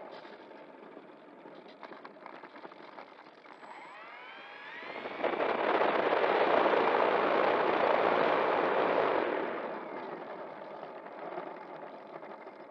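A motor vehicle passing close by: it builds up about four seconds in, is loudest for about four seconds, then fades away.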